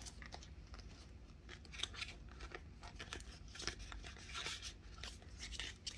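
Paper banknotes rustling and crinkling softly as a small stack of bills is handled and tucked into a clear cash envelope, with scattered faint crisp ticks.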